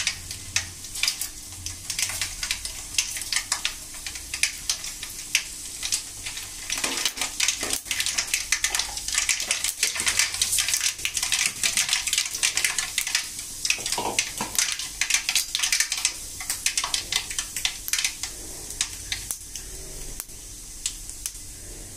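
Mustard seeds and urad dal spluttering in hot oil in an aluminium kadai: a dense run of sharp crackling pops that thins out near the end.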